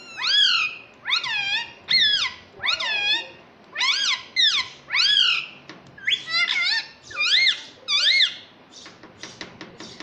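Indian ringneck parakeet giving about a dozen shrill calls in quick succession, each rising then falling in pitch, one every half second or so. Near the end the calls give way to a run of quick clicks.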